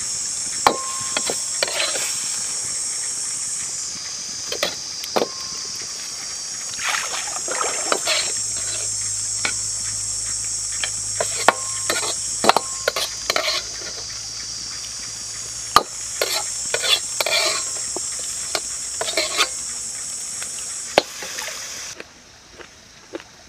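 A metal ladle scraping and knocking against a wok as stir-fried food is scooped out onto a plate, with scattered clicks and clatter. Behind it runs a steady high-pitched drone that cuts off suddenly near the end.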